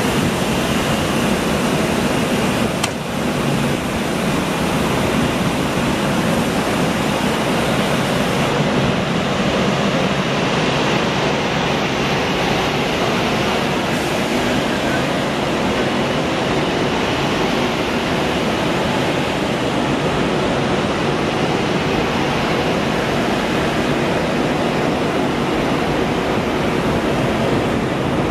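ChS7 electric locomotive pulling a passenger train out of the station and passing close by, a loud steady rushing noise from its cooling fans and wheels, with the coaches rolling past after it. A short knock sounds about three seconds in.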